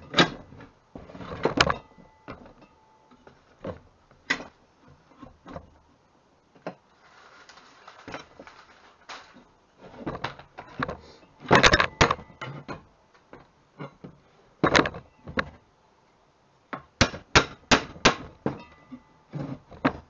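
Steel parts of a B-body Mopar clutch and brake pedal assembly clanking and knocking against each other and the workbench as the bracket and pedal arms are handled and fitted together. Irregular sharp metal clicks and knocks, several in quick runs in the middle and near the end.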